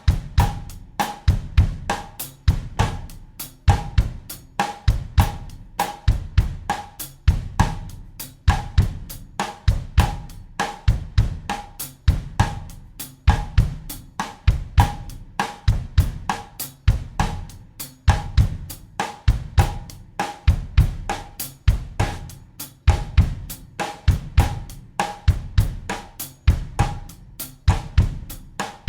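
Acoustic drum kit playing a bossa nova groove in 4/4 at 100 beats per minute. Kick drum, snare and cymbals keep a steady, evenly repeating pattern throughout.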